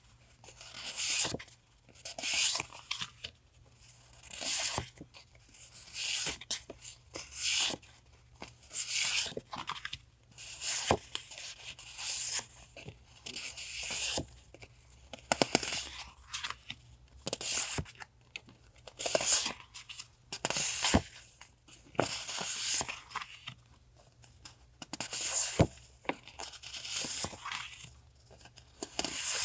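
Paper being torn and crinkled by hand: a string of short rips and rustles, about one a second.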